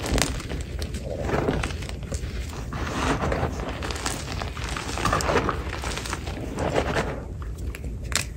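Hands squeezing and crumbling clumps of soft gym chalk, a soft crunching that swells with each squeeze, about every second or two, as powder sifts back into the pile.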